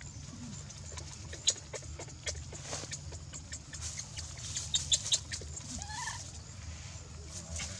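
Dry leaf litter crackling and rustling as a baby macaque picks through it and moves about, with sharp clicks loudest about a second and a half in and around five seconds in. A few short rising calls sound in the background.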